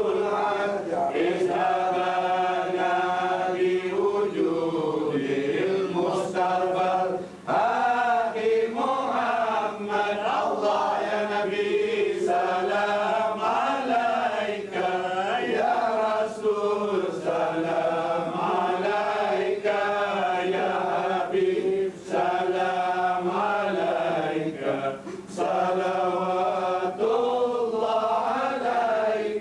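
Arabic religious chanting in the style of Quran recitation: one voice singing long, ornamented phrases with held, wavering notes, broken by brief pauses for breath.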